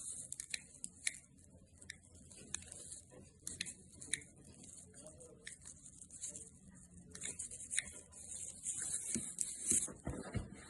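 Light, scattered plastic clicks and rustling from handling the small BMW E36 window switch, with a high hissing rustle that comes and goes and a duller knock near the end.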